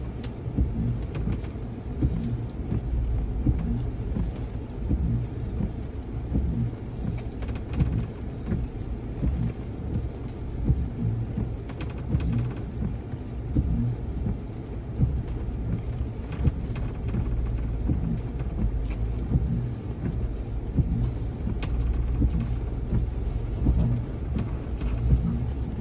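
Ford Bronco's engine running at low speed, heard as a deep rumble inside the cab as it crawls over a rough dirt trail. Irregular knocks and bumps from the body and suspension run through it.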